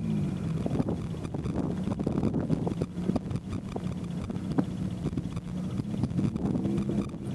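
A car engine running at a steady speed, its hum holding one pitch, under heavy wind noise buffeting the microphone of a moving car.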